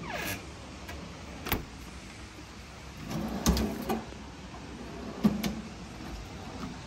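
Stainless steel undercounter ice maker door and refrigerated beverage drawer being handled: a sharp click about a second and a half in, then the drawer sliding out and stopping with a thump near the middle, and another sharp clunk a couple of seconds later.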